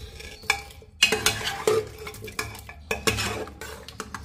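A metal ladle stirring bottle gourd chunks into wet, soft-cooked chana dal in an aluminium pressure cooker. It clinks and scrapes against the pot several times.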